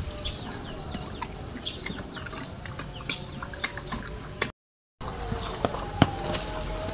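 Birds chirping over and over in quick, short, falling calls, with scattered light clicks and knocks. The sound cuts out completely for about half a second near the middle.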